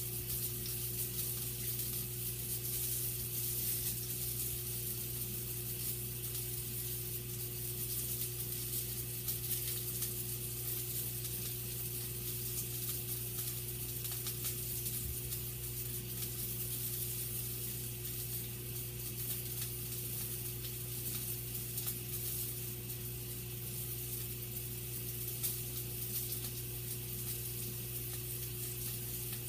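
Sausage frying in a skillet, sizzling steadily with faint scattered crackles, over a steady low hum.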